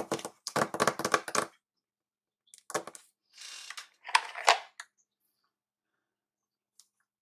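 Plastic coloring markers clicking and clattering against each other as they are picked through, in three short bursts, with a brief scrape of sliding about halfway.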